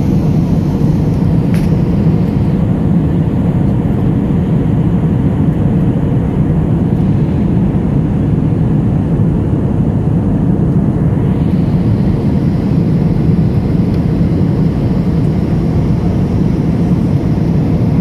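Steady cabin drone of a jet airliner in flight, the engine and airflow noise heard from inside the cabin, low-pitched and unchanging.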